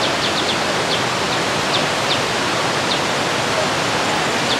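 Steady rush of flowing water, with a bird's short high chirps coming irregularly, more often in the first second or two.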